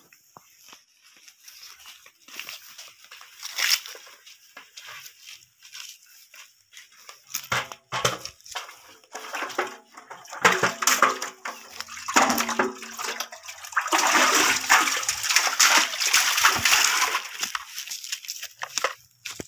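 Water splashing and sloshing as a container is drawn up from a concrete well and emptied into a basin. The splashing is loudest for a few seconds about two-thirds of the way through.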